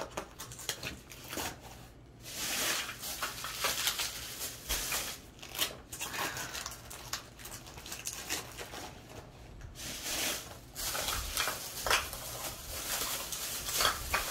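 Frozen plastic gel ice packs crinkling and rustling against the vest's fabric as they are handled and pushed into its pockets, in irregular bursts with short pauses.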